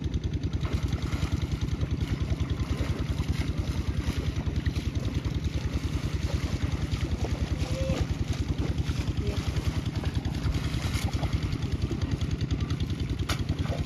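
A small engine running steadily with a fast, even chug.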